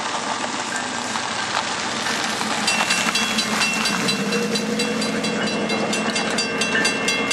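Canadian Pacific intermodal freight train passing behind ES44AC and AC4400CW diesel locomotives, with a steady running noise. From about three seconds in come a low engine drone, a high steady ringing tone and a fast run of regular clicks.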